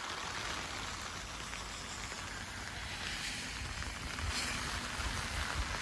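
Steady rain with wind, an even hiss and low rumble.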